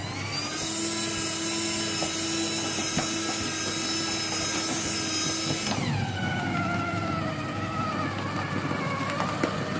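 Electric paper shredder motor running with a whine. Its pitch rises about half a second in and holds steady. About two-thirds of the way through it drops sharply and keeps sagging lower as the motor slows under load.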